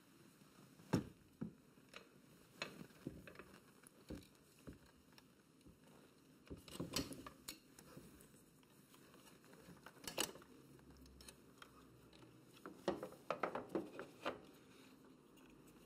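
Faint, scattered clicks, taps and light rustles of a replacement rear shock absorber being worked by hand into a motorcycle's frame, with now and then a sharper knock of metal parts against the frame.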